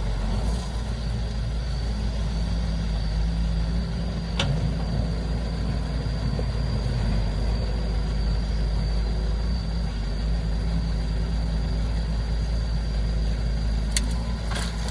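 Heavy construction-machinery engine running steadily with a low rumble, a thin high whine held over it. A single sharp click about four seconds in, and a couple more near the end.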